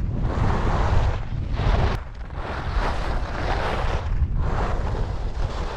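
Skis sliding down a groomed piste, the edges hissing on packed snow in swells that fade and return several times, over a low rumble of wind buffeting the microphone.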